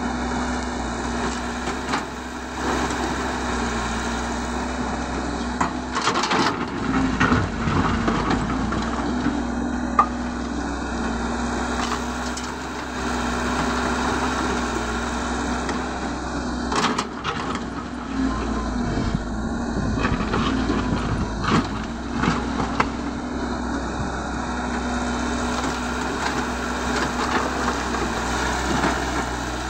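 Caterpillar 312 hydraulic excavator's diesel engine running steadily under load as it works, with rocks and dirt clattering and thudding into a steel dump-truck bed several times.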